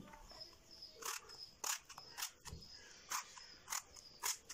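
Small kitchen knife scoring slits into a peeled eggplant: about six short, crisp cuts, roughly one every half second.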